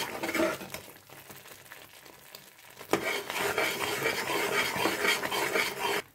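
Perforated steel ladle stirring and scraping thick Mysore pak batter of gram flour, sugar syrup and ghee around an aluminium pan, the ghee-rich batter frying with a sizzle. The stirring goes quiet for about two seconds after the start, comes back with a knock of the ladle midway, then carries on briskly. The batter is frothing and turning porous, the sign that it is nearly ready to pour.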